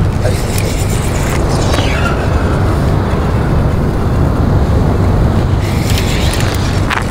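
Steady wind rumbling on the microphone, with a few faint clicks and scrapes scattered through it.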